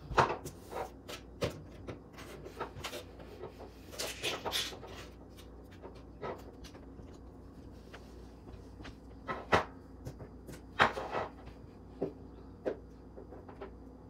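Small plastic toys and a glass nail polish bottle being picked up and set down on a cardboard box and wooden table: scattered light taps and knocks, with a few louder knocks.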